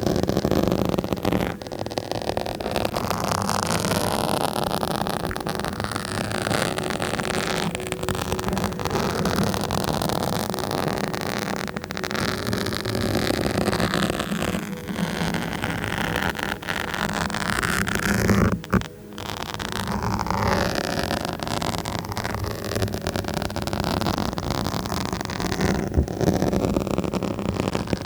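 Scratching directly on a microphone: continuous close, scratchy rustling full of small clicks, with a brief break about two-thirds of the way through.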